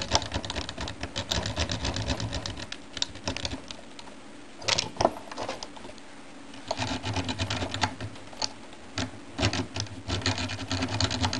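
Double-sided lock pick raking inside a Peugeot 205 car door lock: runs of rapid, light metallic clicking and rattling as the pick works the lock. There is a sparse stretch of about two seconds near the middle, broken by a couple of louder clicks.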